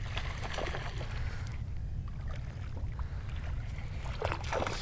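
Wind buffeting the microphone: a steady low rumble with a few faint brief rustles over it.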